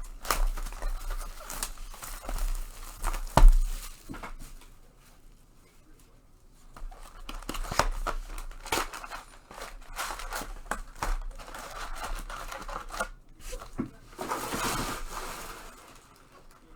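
Cardboard and plastic wrapping of a trading card retail box being torn open and crinkled, with scattered sharp snaps and clicks, the loudest about three and a half seconds in.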